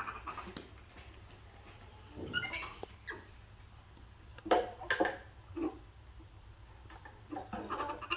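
Pet monkey giving scattered short, high squeaks and chirps, one rising chirp about two seconds in and a thin high squeak just after, then a few brief calls.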